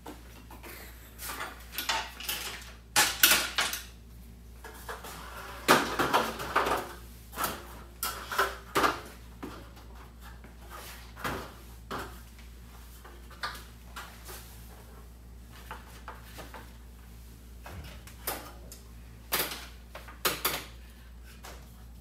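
Scattered knocks and clatters as a stepladder is set up and climbed, with a loud cluster of knocks about six seconds in and single knocks spaced through the rest.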